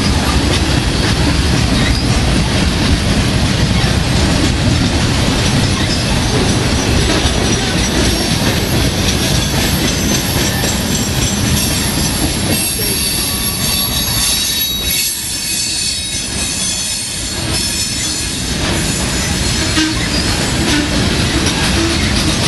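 Loaded freight train's boxcars rolling past close by: a steady rumble and clatter of steel wheels on rail. Around the middle, a high metallic wheel squeal rises over it for several seconds while the rumble briefly eases.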